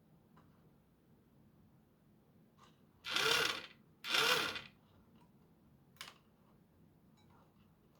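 The small electric motor and plastic gear train of a partly disassembled Nerf Gatling blaster run in two short bursts about a second apart, each whirring up in pitch and winding back down. A single click follows a little later.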